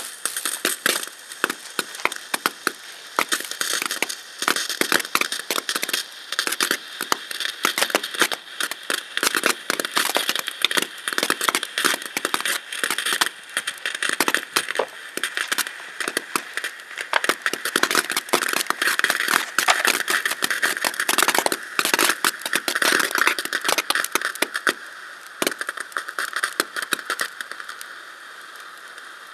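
Small fountain firework burning, dense crackling over a steady hiss as it sprays sparks; the crackle thins out and quietens near the end.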